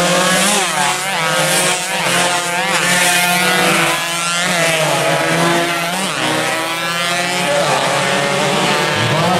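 Several two-stroke underbone (bebek) race motorcycles at full race pace, engines revving hard and rising and falling in pitch as the bikes accelerate, shift and pass one after another.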